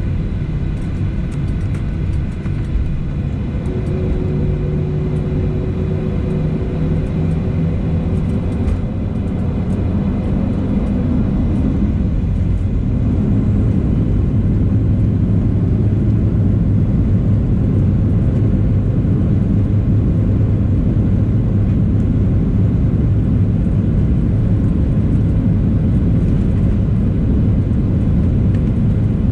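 Boeing 737-700's CFM56 jet engines at takeoff power, heard inside the cabin: a steady roar that grows louder about ten to fourteen seconds in, then holds.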